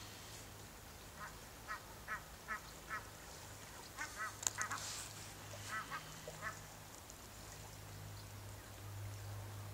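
Waterfowl calling: a run of five short honking calls about half a second apart starting about a second in, then two more quick clusters of calls a few seconds later. A single sharp click comes in the middle, over a low steady hum.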